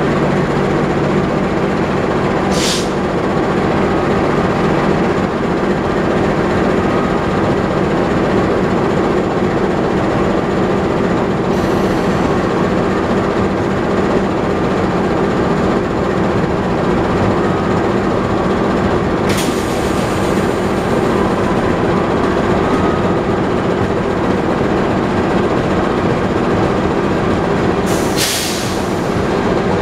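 An Indonesian passenger train's executive coaches rolling slowly along the platform, with a steady mechanical drone. Three short hisses of air come about 3, 19 and 28 seconds in.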